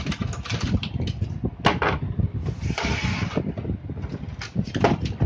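Handling noise of an HP LaserJet 1020 printer and a screwdriver on a workbench: irregular plastic and metal clicks and knocks, with a short rushing scrape about three seconds in.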